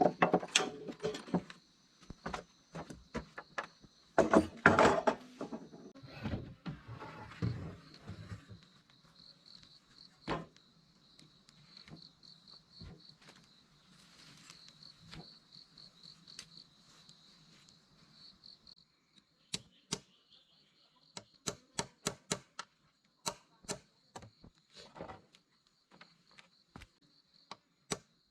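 Insects trilling in a steady high tone that pulses for a while in the middle. Scattered knocks and handling clatter come in the first several seconds, and from about two-thirds of the way through there is a run of quick, evenly spaced chopping strokes.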